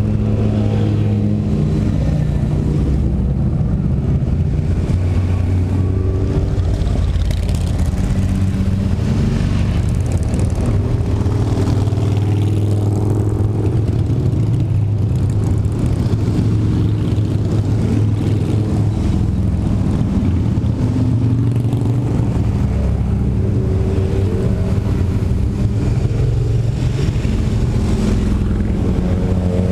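A steady stream of cruiser and touring motorcycles riding slowly past close by, one after another, their engines running low and loud with the pitch shifting as each bike goes by.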